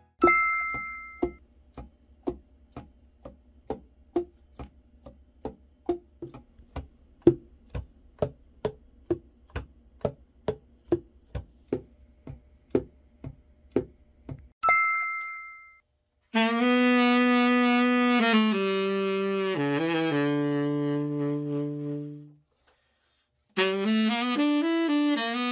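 Evenly spaced light clicks, two or three a second, for about fourteen seconds, opened and closed by a short chime. Then a Yamaha YTS-280 tenor saxophone is played in held low notes, stopping for about a second before it starts again, as it is play-tested after a full overhaul.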